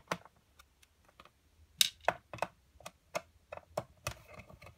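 Hands handling the plastic case of an IBM ThinkPad 701C laptop: irregular light clicks and taps, sharpest about two seconds in and again about four seconds in.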